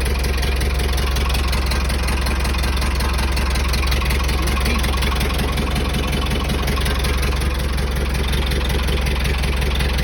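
Late-1970s JCB 3C Mk III backhoe's Leyland six-cylinder diesel idling steadily, still warming up after a cold start.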